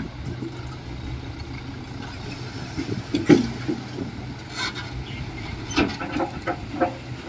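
Heavy construction machinery running steadily at a low rumble, with several sharp metallic clanks and knocks in the second half.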